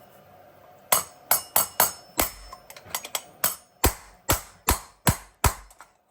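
Hammer blows, about a dozen sharp strikes at roughly two a second, knocking the worn-out bearing out of a wagon wheel hub.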